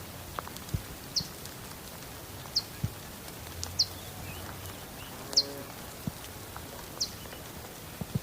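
A small bird giving a short, high, falling chirp about every second and a half, over a steady hiss of rain.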